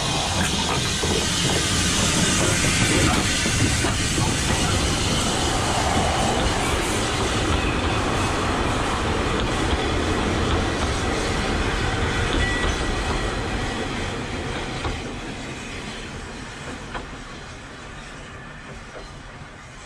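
Narrow-gauge steam train, a tank locomotive and its coaches, running past close by; loud at first, then fading over the last several seconds as it moves away down the line.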